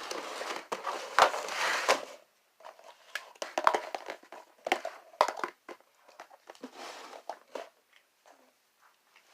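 Crinkling and rustling handling sounds for about two seconds, followed by scattered small clicks and crackles that thin out toward the end.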